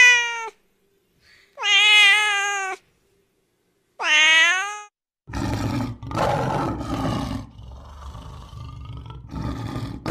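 A domestic cat meowing three times, each meow falling in pitch at the end. A lion follows with rough, low roars and growls in several pulses.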